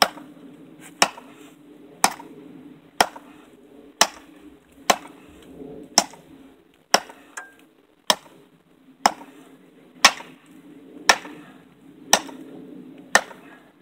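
Custom butcher/camp machete chopping into a 2x6 board: sharp blade strikes into the wood, about one a second.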